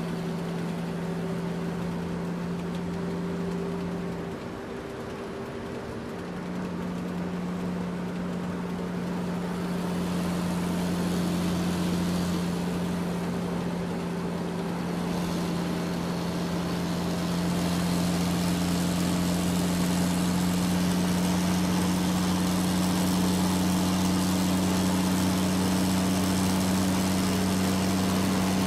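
Radio-controlled CAT hydraulic excavator model running with a steady, engine-like hum while it digs and loads a toy dump truck. The hum dips briefly about five seconds in, returns slightly higher in pitch, and gets a little louder later on.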